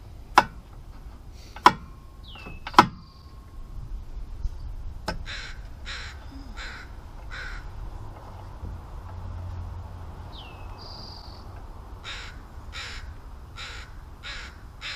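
Three sharp clicks in the first three seconds, the loudest sounds, the last two with a short ring. Then a bird calling repeatedly: four calls about 0.7 s apart from about 5 s in, and another run of calls from about 12 s on.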